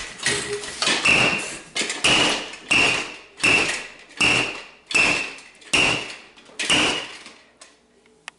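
A plastic toy hammer pounding a table heaped with broken chocolate, about ten blows a little more than one a second. Each blow gives a short high squeak on top of the thud. The blows stop shortly before the end.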